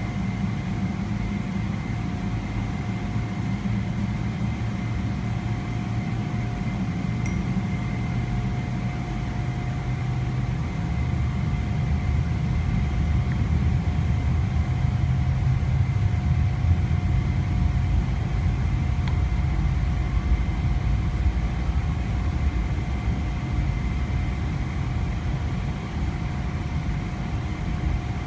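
Cabin noise inside a Boeing 777-300ER as it taxis: a steady low rumble with a faint steady whine above it. The rumble grows louder about ten seconds in and eases slightly near the end.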